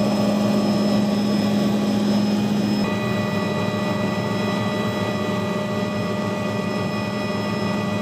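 Helicopter in flight heard from inside the cabin: a steady engine and rotor drone with a steady whine on top. The mix of tones shifts slightly about three seconds in.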